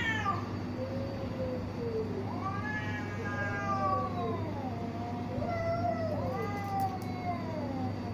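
Two cats in a face-to-face standoff, yowling: long, wavering, drawn-out wails that rise and fall in pitch, several in a row with short pauses between them. It is the threat yowling of cats squaring off before a possible fight.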